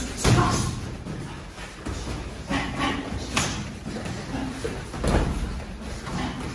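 Martial-arts training on foam floor mats: thuds and slaps of bodies, feet and gloved strikes, a handful of sharp knocks at irregular intervals.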